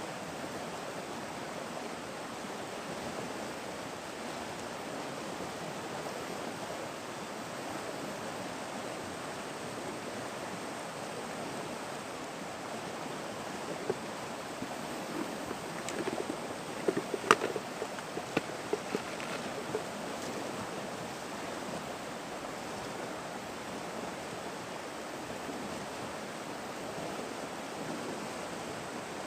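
Steady rushing of flowing river water. Between about 14 and 20 seconds in comes a short cluster of clicks and knocks, the sharpest one about 17 seconds in.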